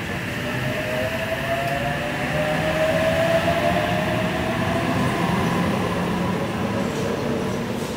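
Sydney Trains H-set (OSCAR) electric train pulling away past the platform. Its traction motors whine, rising in pitch as it accelerates, over a steady rumble of wheels on rail, loudest about three seconds in.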